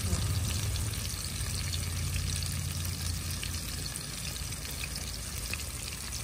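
Breaded fish fillets frying in hot oil in a stainless steel pan, a steady sizzle and crackle, over a low hum that fades out about halfway through.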